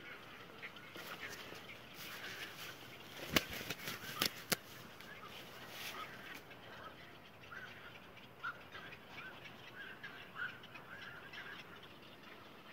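Frogs calling: many short, repeated croaks. A few sharp knocks come between about three and four and a half seconds in, handling noise as the camera is moved and set down.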